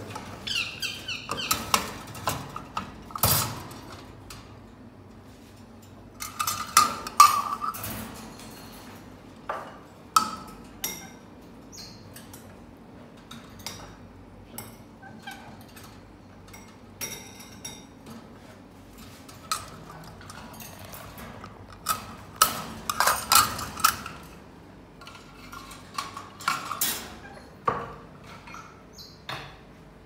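Clinks, knocks and rattles of feeding dishes and wire birdcage doors being handled as food is put into the cages. They come in scattered clusters with quieter gaps between.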